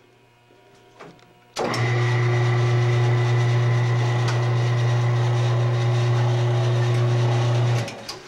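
Electric drive motor of a screw-and-nut driven lift, under a test load of weights. A click about a second in, then the motor starts abruptly and runs with a steady loud hum and a faint high whine for about six seconds before stopping.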